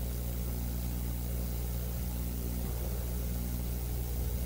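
Steady low electrical hum: an unchanging drone of low tones with nothing else over it.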